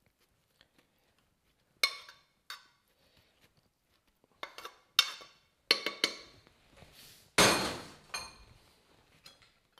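A spoon clinking and scraping against a frying pan as leek and tempeh are knocked out into a quiche tin: a handful of separate sharp clinks, then a louder clatter lasting about a second, a little after seven seconds in.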